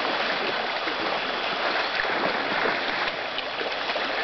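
Swift river current rushing, a steady wash of moving water.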